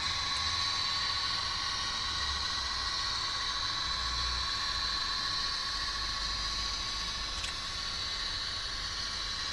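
Soundtraxx Econami sound decoder in an N scale Bachmann GP40 model locomotive playing its diesel engine sound through the tiny onboard speaker: a thin, steady hissing run with a high steady whine and almost no bass.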